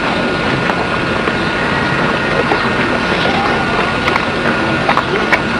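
Steady rushing background noise of an old outdoor videotape recording, with a thin steady high whine and a few faint clicks.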